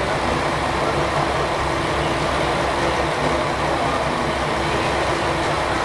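Diesel railcar engines running steadily as a diesel train pulls slowly into the platform beside another standing diesel train.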